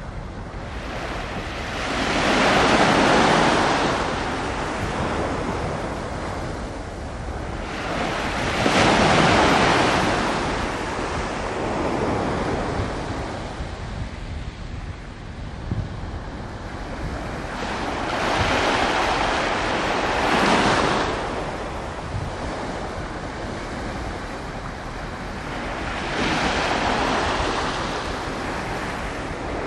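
Harbour water washing against the shore in four slow swells of rushing noise, several seconds apart, over a steady low rumble of wind on the microphone.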